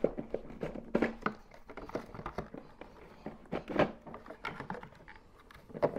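Irregular plastic clicks and knocks as Makita battery packs are unlatched and slid out of a cordless lawnmower's battery compartment, the firmest knocks about a second in, near four seconds and at the end.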